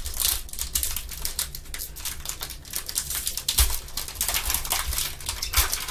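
Foil trading-card pack wrapper being torn open and crinkled by gloved hands: a dense, irregular crackle.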